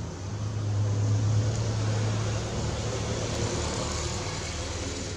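A motor vehicle's low engine hum with road noise, swelling about a second in and slowly fading, as from a vehicle passing.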